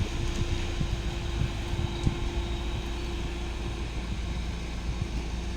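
A vehicle running with a steady low rumble, with wind buffeting the microphone.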